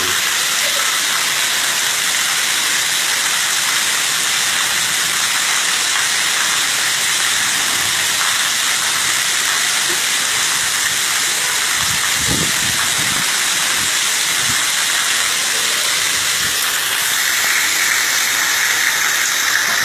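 Heavy rain pouring down as a loud, steady hiss, with a brief low rumble about twelve seconds in.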